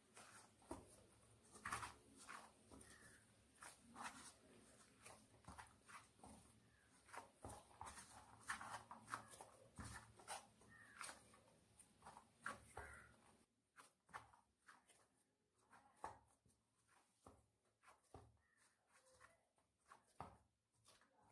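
Faint, irregular squelching and light clicks of soft rice dough being pressed and kneaded by hand in a stainless steel bowl, thinning out in the second half.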